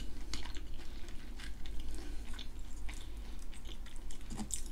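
Close-up chewing of a battered onion ring, with many small irregular wet mouth clicks.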